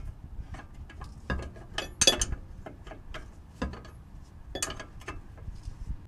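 Irregular metallic clicks and clinks as a loosened shock mounting nut and washer come off and are handled with hand tools, the loudest clink about two seconds in.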